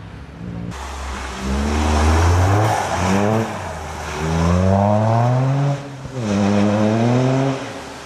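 Toyota GR Yaris rally car's turbocharged 1.6-litre three-cylinder engine at full throttle. Its pitch climbs through three hard pulls, with a sudden drop at each gear change.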